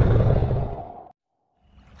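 Deep dinosaur roar sound effect that fades out about a second in. It is followed by a moment of dead silence, and faint quiet ambience starts near the end.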